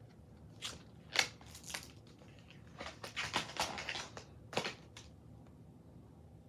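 Short rustling and scraping handling noises, a string of scratchy bursts from about half a second in until about five seconds in.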